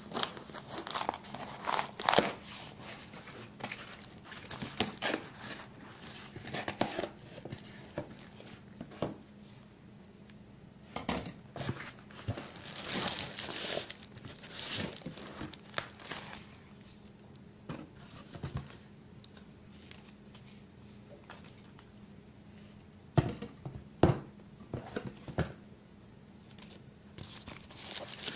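Cardboard shipping box and plastic bubble wrap rustling and crinkling as they are handled and unwrapped by hand, in irregular bursts with scattered sharp crackles. A few louder snaps come near the end.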